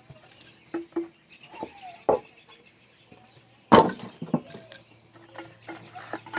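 A string of sharp knocks and clinks, the loudest a little past the middle followed by a brief high ring: the acetone container being opened and handled to pour acetone into a plastic can lid.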